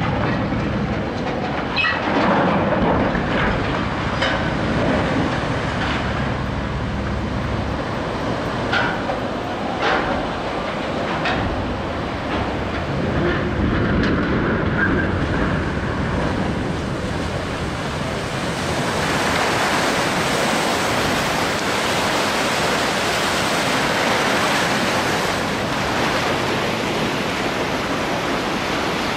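A cargo ship being side-launched: the hull slides sideways off the launch ways into the river with a low rumble and scattered knocks, which stop about eight seconds in. From about two-thirds of the way through, the wave it throws up rushes and splashes toward the bank.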